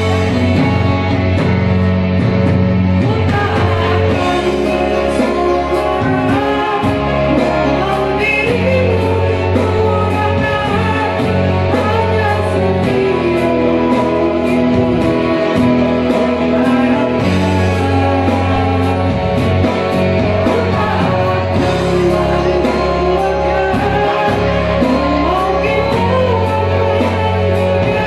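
A woman singing a slow song into a microphone, amplified over backing music with sustained bass notes and guitar. Her voice comes in a few seconds in, after an instrumental opening.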